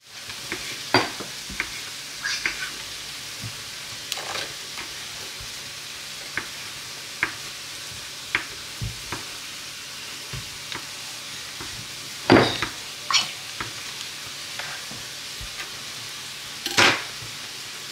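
Kitchen knife slicing through a boudin blanc onto a bamboo cutting board: irregular sharp taps and knocks of the blade on the wood, a few louder ones, over a steady low hiss.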